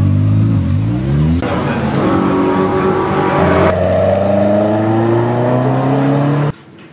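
Kit car engines revving and accelerating in several short clips cut together, the engine note climbing in pitch as the cars pull away. The sound cuts off suddenly about six and a half seconds in.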